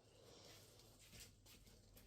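Near silence: room tone, with a few faint light clicks from about a second in.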